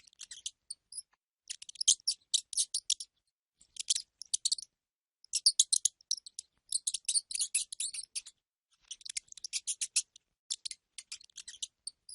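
Rat squeaking: rapid high-pitched squeaks and clicks in quick runs, about six runs broken by short pauses.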